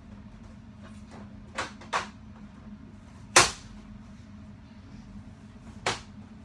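Four sharp knocks and clacks of hard objects being handled, the loudest just past the middle, over a steady low hum.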